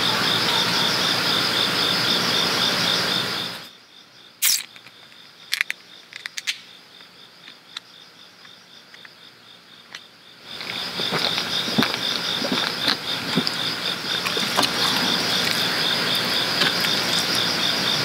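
Crickets chirping in a dense night chorus, a steady high pulsing trill. The chorus drops away for several seconds in the middle, when only a few sharp clicks are heard, then comes back.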